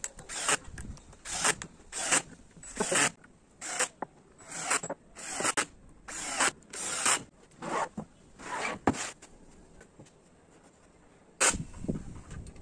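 DeWalt cordless drill driving screws through pocket holes into plywood panels, in a rapid string of short bursts, a little more than one a second, with a pause of about two seconds near the end.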